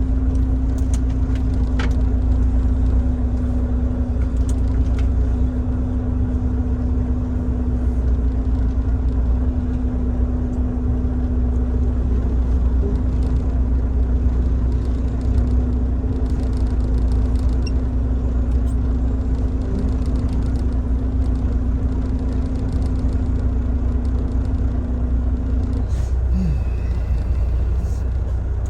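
Semi truck's diesel engine running with a steady low rumble, with a steady hum over it that stops near the end.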